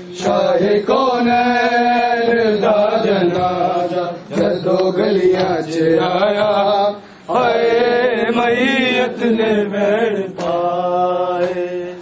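Men chanting a Punjabi noha, a mourning lament, in long held, wavering notes. Sharp slaps of bare-handed chest-beating (matam) break in repeatedly.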